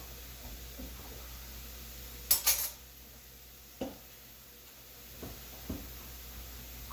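Kitchen dishes and utensils clattering: a sharp double clink a little over two seconds in, then a few lighter knocks.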